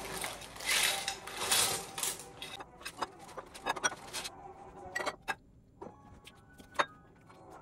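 Plastic bag rustling for the first couple of seconds as leftovers are tipped in from a bowl, then scattered clinks and light knocks of dishes and cutlery as the table is cleared.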